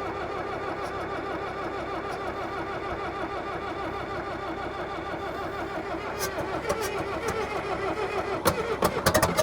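Old Caterpillar bulldozer engine cranking over on a cold start with a fast, even rhythmic chug, trying but not catching. A few sharp clicks or knocks come near the end as the cranking stops.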